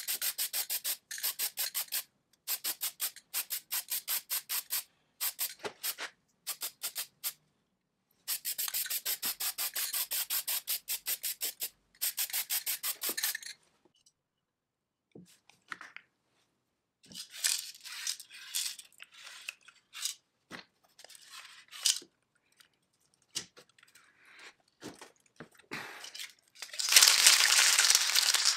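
Rapid back-and-forth rubbing strokes on a part, in several runs of a few seconds each, then slower, irregular scraping. Near the end a loud, continuous hissing spray starts.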